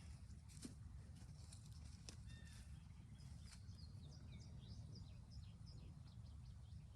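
Faint birdsong: a bird gives a run of short, quick chirps from about two seconds in until past the middle, over a low steady rumble, with a couple of soft clicks.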